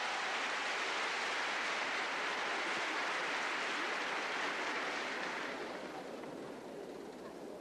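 Arena crowd applauding, a dense steady clapping that dies down near the end.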